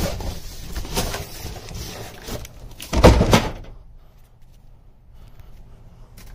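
Packaging of a floor jack being handled and opened: irregular rustling and knocks, with one loud thump about three seconds in, then it goes quieter.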